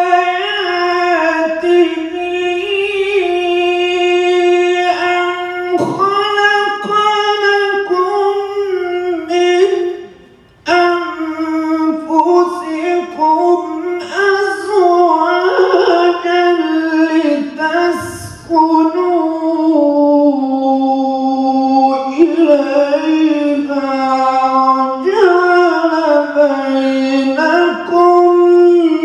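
A man's solo unaccompanied Islamic chanting into a handheld microphone, in the melodic recitation style, hand cupped to his ear. Long, ornamented held phrases with wavering pitch, broken by breath pauses about ten and eighteen seconds in.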